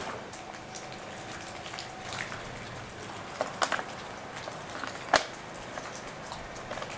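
Light clicks and taps from a chainsaw's guide bar and saw chain being handled and checked, over a steady hiss. There is a cluster of louder clicks about three and a half seconds in and a single sharp click a little after five seconds.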